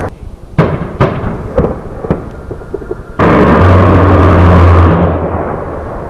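Several sharp bangs in the first two seconds. Then, a little after three seconds in, an A-10's GAU-8 Avenger 30 mm rotary cannon fires a long burst: a sudden, loud, low buzzing drone lasting under two seconds that rumbles away slowly.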